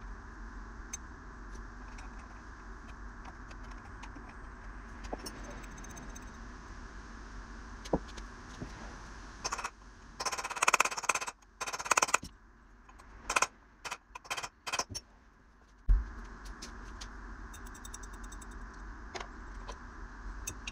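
Metal tools and parts clinking and rattling in quick clusters while a Husqvarna 365 Special chainsaw's flywheel is worked off, with scattered single clicks and one sharp click about two-thirds of the way through.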